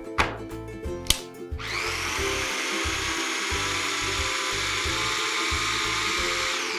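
Electric mini food chopper with its motor running steadily for about five seconds, mincing a parsley, coriander, pepper and garlic stuffing, given as a final short pulse. Two knocks come before the motor starts.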